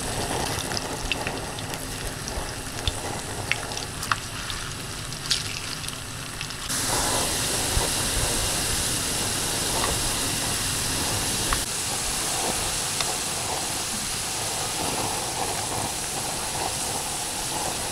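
Potato sticks frying in hot oil in a small pan, sizzling with scattered crackles and pops. About seven seconds in, the sizzle turns abruptly louder and denser and stays that way.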